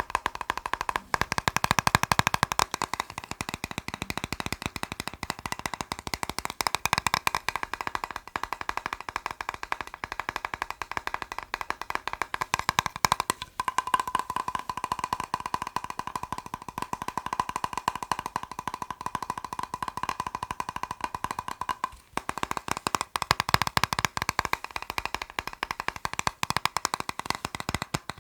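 Fast tapping on a plastic box: a dense, unbroken run of quick taps with a hollow ring. The tapping shifts briefly about 13 seconds in and again about 22 seconds in, and the ringing tone is stronger in between.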